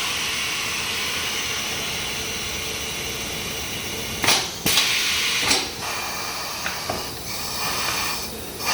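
Tyre changer machine working a wheel: compressed air hissing from its pneumatic controls, a long hiss and then several shorter bursts with clicks and knocks.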